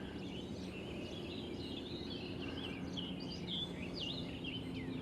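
Birds chirping and singing, many short quick warbling calls overlapping one another, over a faint steady low hum.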